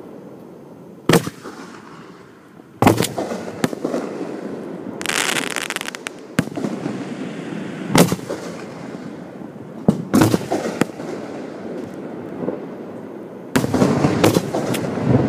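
Aerial fireworks shells going off at close range: sharp bangs at irregular gaps of a few seconds, some in quick pairs, with a second-long crackling hiss about five seconds in.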